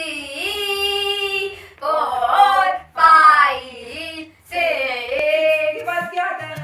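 A girl singing in long, drawn-out notes: the first held for almost two seconds, then three shorter phrases with short breaks between them.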